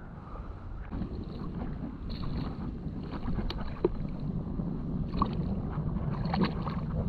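Gloved hand sloshing and pressing into shallow water over soft tidal mud, working into an octopus burrow, with scattered short wet squelches and clicks. Underneath is a steady low rumble of wind on the microphone.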